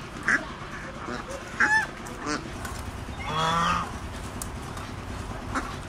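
Farmyard fowl calling a few times, short calls with the longest about three and a half seconds in.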